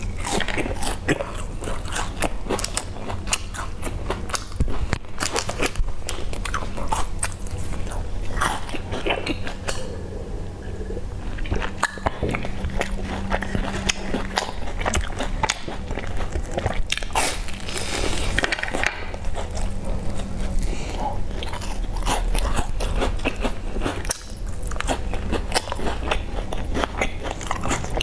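Crunching and chewing of crisp round sandwich biscuits with sesame-coated edges: a dense run of small crisp bites and crackles.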